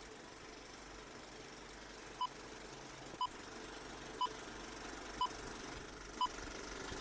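Short electronic beeps, one each second, starting about two seconds in, over a faint steady hiss.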